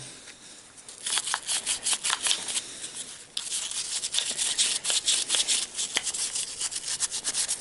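Rubbing and scraping strokes as dirt is cleaned off a GAZelle van's heater blower motor, several strokes a second, with a short break about three seconds in.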